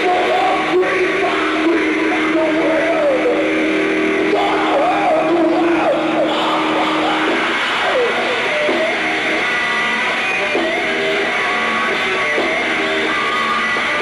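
Heavy metal band playing on stage during a soundcheck: distorted electric guitar with held and bent notes over the band, loud and steady.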